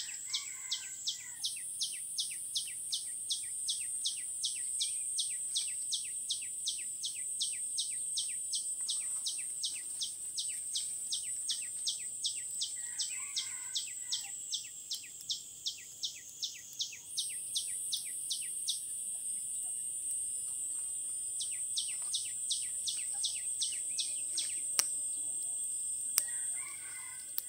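Forest insect chorus: a steady high-pitched drone with a rapid chirping call repeating about three times a second. The chirping stops about two-thirds of the way in and returns briefly, and a single sharp click sounds near the end.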